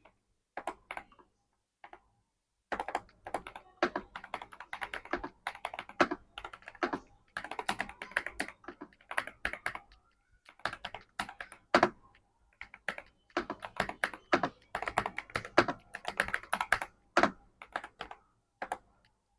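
Typing on a Monka 3087 Pro V2 mechanical keyboard with KTT Hyacinth linear switches: quick runs of keystrokes broken by short pauses, with a brief lull a little after the start.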